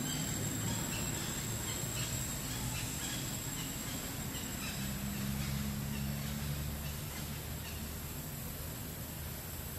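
Outdoor ambience: a steady high insect drone and scattered small bird chirps over a low rumble, with a low hum joining for about two seconds near the middle.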